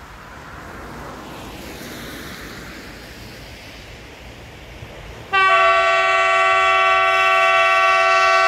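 Electric locomotive EP05-23 approaching with a growing rumble, then about five seconds in sounding one long, loud, steady horn blast that holds to the end.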